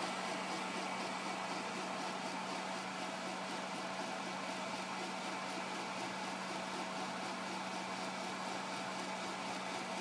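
Bukobot 3D printer printing at high speed: its stepper motors whir in quick, rapidly changing runs as the print head darts back and forth, over a steady hum.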